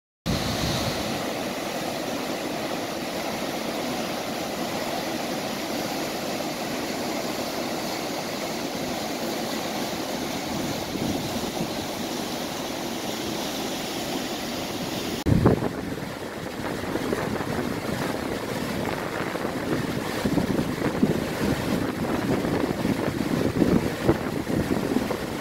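Fast, heavy floodwater of a river in flood rushing around bridge piers, a steady rushing noise. About fifteen seconds in the sound changes with a thump of wind on the microphone, and gusts buffet the microphone over the water from then on.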